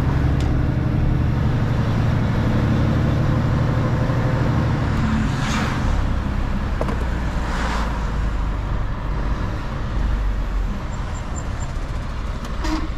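Mercedes-Benz Actros L truck driving, its diesel engine droning steadily under tyre and road noise; the engine note shifts about five seconds in. Two brief whooshes come a couple of seconds apart in the middle.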